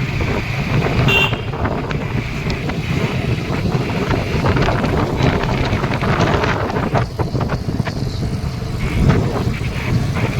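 Motorbike engine running on the move, with wind rushing over the microphone.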